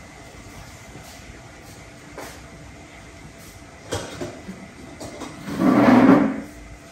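A chair scraping across a tiled floor for about a second near the end, after a sharp knock about four seconds in.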